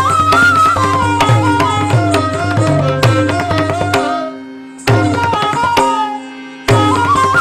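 Odissi classical music: mardala drum strokes under a gliding, ornamented melody line over a steady drone. The music fades twice and comes back in sharply, about five seconds in and again near the end.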